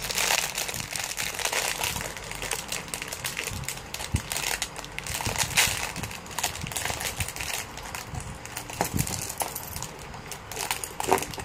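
Thin clear plastic Lego parts bag crinkling as it is handled, with small plastic pieces clicking against each other in an irregular patter.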